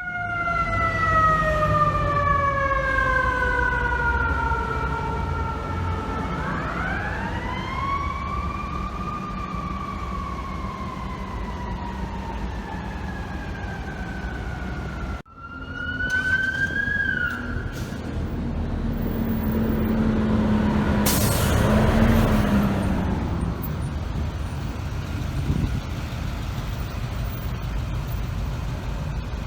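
Fire truck's mechanical siren winding down in a slow falling wail, spun up again about six seconds in and then coasting slowly down. After a cut, a short rising siren whoop, then a steady air horn blast over loud truck noise about two-thirds of the way through.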